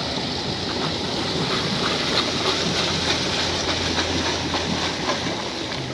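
Stream water rushing, a steady even hiss.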